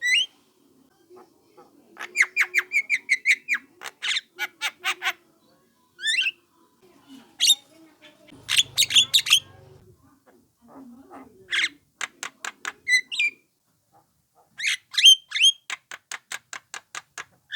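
Young Javan myna calling: bursts of rapid, harsh repeated notes, several notes a second, broken by short pauses, with some rising notes between the bursts.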